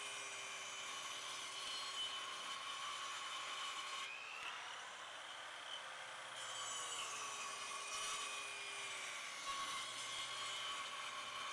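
Black & Decker 13-amp corded circular saw with an 18-tooth blade cutting through a 2x12 pressure-treated board: a steady motor whine and the blade cutting wood, the pitch rising for a couple of seconds in the middle before settling back.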